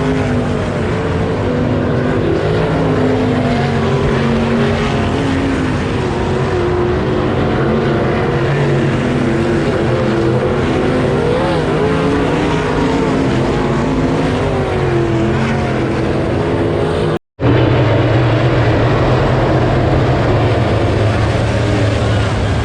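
Several dirt-track race car engines running together, their pitch rising and falling as the cars accelerate and lift. About three-quarters of the way through there is a brief dropout at a cut.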